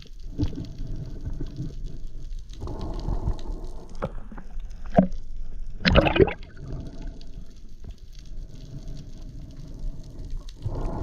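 Water sloshing and gurgling as heard by an underwater camera during a spearfishing dive, coming in slow surges, with one louder, sharper gush about six seconds in.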